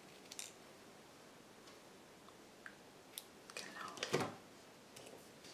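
Small scissors snipping paper by hand: a few faint, separate snips and clicks.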